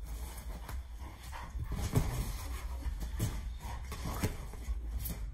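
Rottweiler puppy pawing and pushing an inflated rubber yoga ball: a run of short thumps and scuffs of its paws on the ball, with the dog's own small noises, over a low steady hum.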